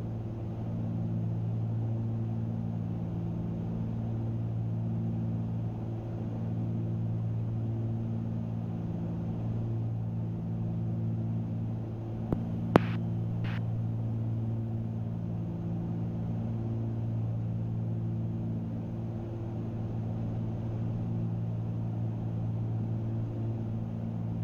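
Cessna 310Q's twin six-cylinder piston engines and propellers droning steadily in cruise, the drone slowly swelling and fading in a throb. A couple of sharp clicks about halfway through.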